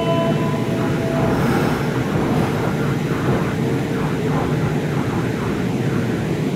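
Steady low hum and rushing noise of a stopped Kintetsu 2680-series electric train at the platform, its onboard equipment running. Two steady higher tones stop within the first second or so.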